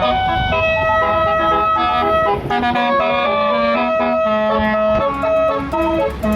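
A tour bus's basuri multi-note horn playing a melody of short held tones that step from pitch to pitch, over the low rumble of the bus engine.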